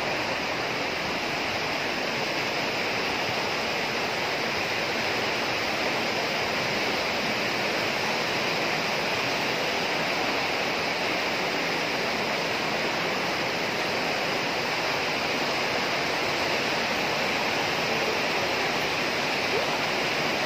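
Mountain stream rushing over small cascades and boulders in a rock gorge: a steady, even rush of water.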